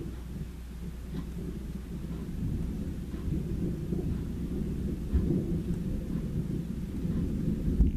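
Thunder rolling: a low rumble that grows louder partway through, surging near the middle and again near the end, with light rain falling.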